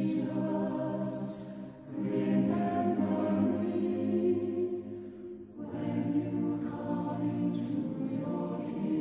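Choir singing a slow devotional hymn in long held phrases, with brief breaths between phrases about two seconds in and again around five seconds in.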